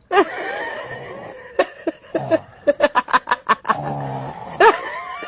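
Snoring: rough, rattling snores with a quick run of clicking snorts about midway and a low buzzing snore near the end, broken by wavering whistle-like tones at the start and near the end.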